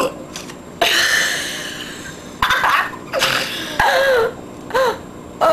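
A person's short, high-pitched non-speech vocal sounds: one longer one about a second in, then a quick run of shorter ones with falling pitch.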